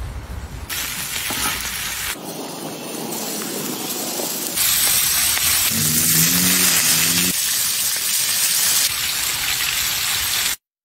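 Slices of pork belly sizzling as they fry on a griddle, a dense steady hiss that jumps louder about four and a half seconds in and cuts off suddenly near the end.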